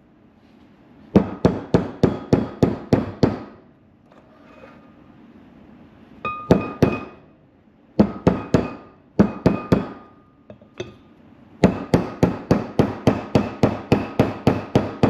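Hammer blows driving a new front wheel bearing race into a 1985 Chevy C10 hub: bursts of sharp metal strikes, about four a second, each with a brief ring, with short pauses between the bursts.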